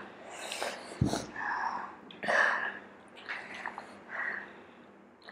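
A person breathing hard and sharply through the mouth, a quick run of loud breaths, from the burning heat of a super-hot chili chip.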